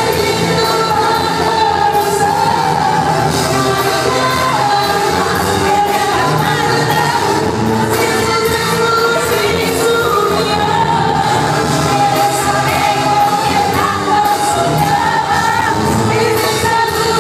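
Live concert music: a woman's lead vocal over a band with brass and percussion, heard through the arena's sound system. The music plays steadily and loudly throughout.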